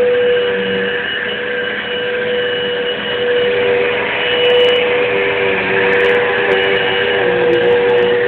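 Household vacuum cleaner running steadily with a constant motor whine and airflow rush, with a few brief sharp ticks about halfway through and near the end.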